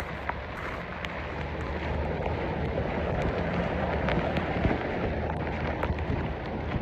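Floodwater rushing and splashing as stormwater gushes out from under a hedge and pours over a kerb and across a footpath, swelling in loudness in the middle. Scattered sharp ticks of rain and a low wind rumble on the microphone run underneath.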